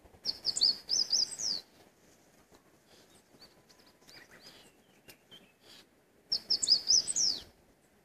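A songbird singing a quick phrase of high, sliding notes, each phrase about a second and a half long, heard twice about six seconds apart. Softer bird calls come in between.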